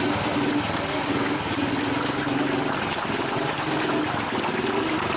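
Several motorcycle engines running as the riders set off, mixed with the chatter of a crowd, a steady dense noise throughout.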